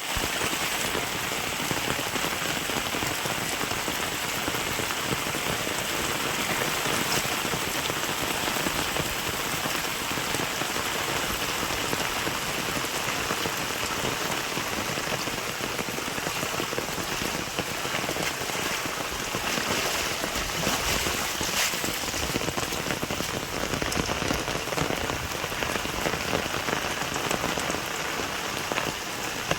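Steady rain falling, with countless individual drops striking surfaces.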